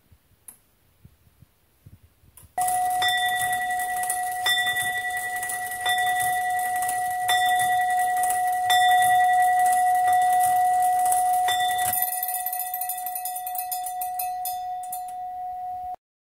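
A replica medieval iron clock striking on its bell: several hammer strokes about a second and a half apart, the bell ringing on between them. Near the end comes a fast clicking as the striking train runs down, and the sound cuts off suddenly.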